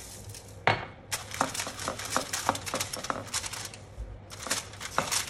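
Aluminium foil crinkling and crackling in quick bursts as gloved hands handle and turn a whole fish on it to rub in salt and pepper, with a sharp knock about a second in and a short lull after the middle.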